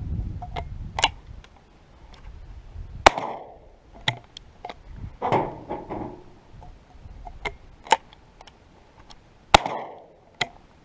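A single-shot 12-gauge shotgun being fired and handled while wet shells are tested, a string of sharp clicks and cracks. The two loudest sharp reports come about three seconds in and shortly before the end.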